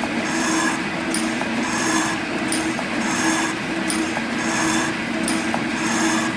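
Metal shaper cutting a cast iron straight edge casting. The ram strokes about once every 1.4 seconds, and each stroke brings a sharp click and a scraping hiss from the tool bit on the iron, over a steady hum from the machine's drive.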